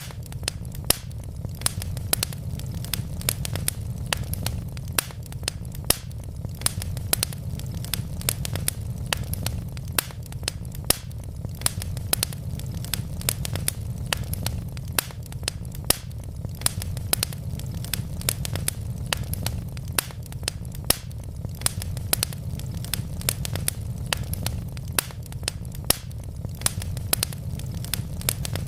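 Wood logs burning in a fireplace: a steady low rumble of flames under frequent sharp crackles and pops, several a second.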